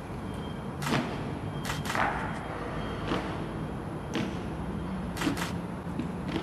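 Honor guard's marching boots striking the ground in a slow ceremonial march: sharp strikes roughly once a second, some in quick pairs.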